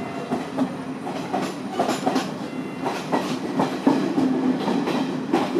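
Class W3 diesel-hydraulic locomotive, built by Henschel, running slowly with its passenger coaches. A steady low engine hum lies under irregular clicks and knocks of wheels clattering over the rail joints.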